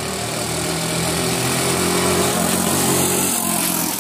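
Honda ATC200 three-wheeler's single-cylinder four-stroke engine getting louder as it rides up and passes close by, its note dropping as it goes past near the end.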